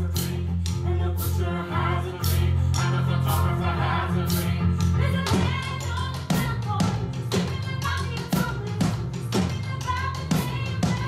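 Live stage-musical band: drum beaten with sticks on a steady beat of about two strikes a second, sharper from about five seconds in, over sustained low cello and piano notes, with a woman singing.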